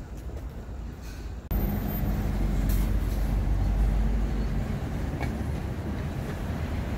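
City street traffic: a steady low rumble of passing cars and engines, starting abruptly about a second and a half in after a quieter stretch of outdoor ambience.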